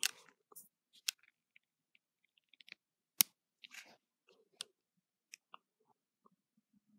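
Scattered small clicks and taps of fingers handling the metal bolster and handle of a 1980s automatic stiletto switchblade, with one sharp click about three seconds in.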